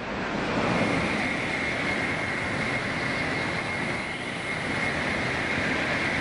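Tokaido Shinkansen high-speed train passing at speed. A loud rushing noise builds over the first second, then holds steady, with a thin high whine running over it.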